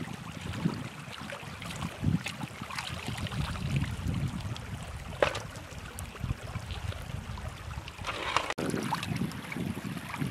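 Shallow stream water running and splashing as hands wash food in it, with wind rumbling on the microphone.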